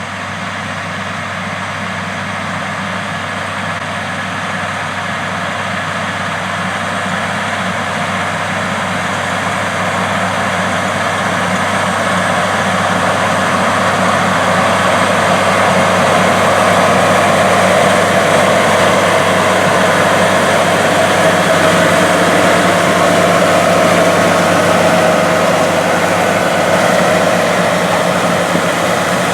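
John Deere 9460RT track tractor's 460 hp diesel engine running steadily as it pulls a strip-till bar, gradually getting louder.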